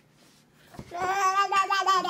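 A toddler vocalizing: one long, high-pitched held 'aah' that starts about a second in.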